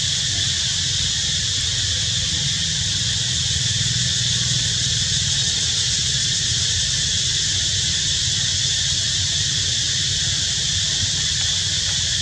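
Steady outdoor background: an even, unbroken high hiss over a low rumble, with no distinct calls or events.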